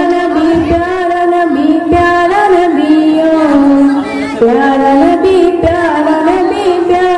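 A devotional Islamic song (naat) sung by a solo voice in long, wavering held notes.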